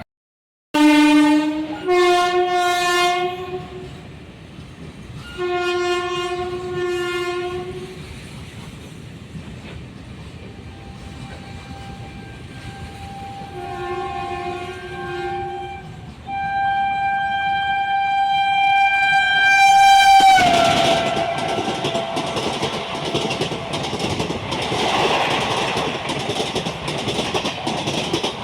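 An express train sounding its horn as it approaches at speed. There are several short and medium blasts, then a long blast whose pitch drops suddenly about twenty seconds in as the train passes. The rush and clickety-clack of its coaches at speed follow.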